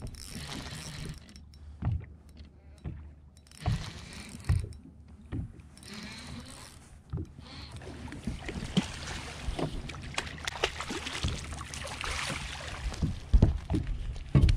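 A hooked striped bass being reeled in on a spinning rod and landed into a boat: irregular knocks and thumps, and stretches of rushing noise, with a cluster of louder knocks near the end.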